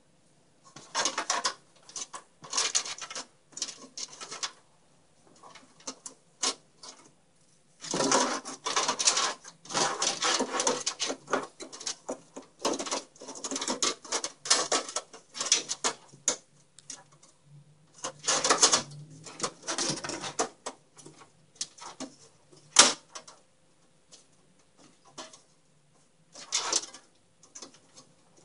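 A thin sheet-metal motherboard I/O shield being handled and worked into a PC case's rear opening: irregular scraping, rattling and clicking of metal against the case, with one sharp click late on.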